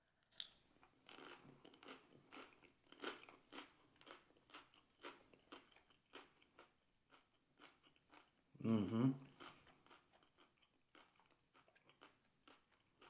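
A man biting into and chewing a mouthful of smoked brown trout fish dip: a run of short chewing sounds, two or three a second, with a murmured "mm-hmm" about nine seconds in.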